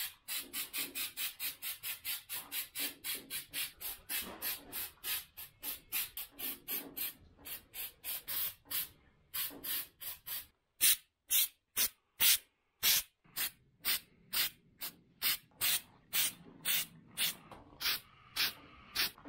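Aerosol can of spray-on truck bedliner fired in many short bursts of hiss, about three a second at first and more widely spaced from about ten seconds in. These quick spurts build up a textured coat.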